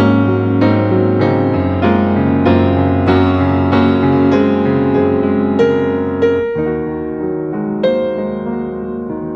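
Background piano music: struck notes over a held bass, the chord changing about two-thirds of the way through.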